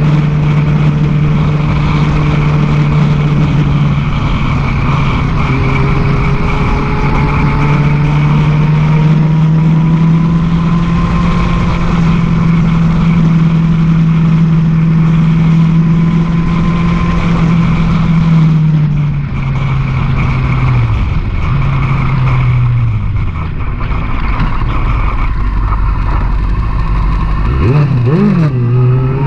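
Sport motorcycle engine running at a steady cruise with wind on the microphone. About two-thirds of the way in, the engine note falls away as the bike slows. Near the end it rises sharply as the bike accelerates again.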